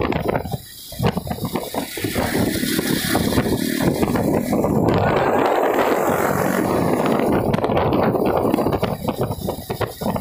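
Wind buffeting the microphone and road rush from riding on a motorcycle, a loud, ragged, noisy roar with a brief drop about a second in, and motorcycle engines blended underneath.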